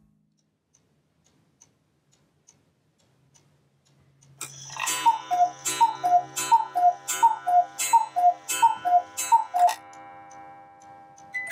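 Black Forest cuckoo clock striking: after a few faint ticks, about seven two-note cuckoo calls, high then low, each opening with a sharp click, with a low steady hum of the works underneath.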